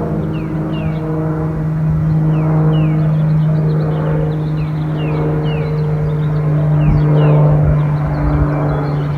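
Steady engine drone with a low rumble, its upper tones shifting in pitch. A short, high, falling chirp repeats about twice a second over it.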